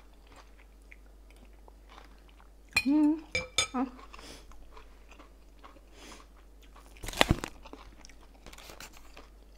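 Close-up chewing of a mouthful of mushroom curry, with soft crunches and mouth clicks. A short hummed vocal sound comes about three seconds in, and a sharp knock a little after seven seconds.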